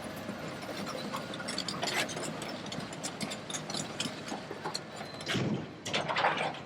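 Komatsu PC210LC hydraulic excavator working demolition debris: the engine runs under a constant clatter of clanks, scraping and crunching, with louder crunches about five and a half and six seconds in.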